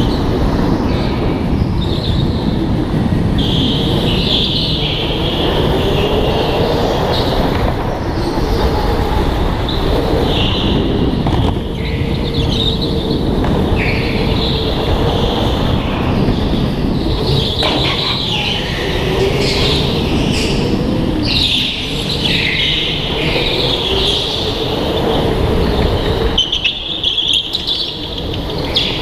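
Indoor go-kart driven hard around the track, heard from a camera mounted on the kart: a steady rumble, a motor whine that rises and falls with speed, and high squealing in the corners. The sound eases briefly near the end.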